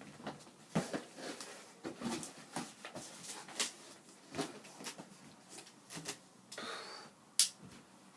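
A cardboard box being opened by hand and its packaging paper rustling and crinkling in irregular bursts, with a sharp click about seven seconds in.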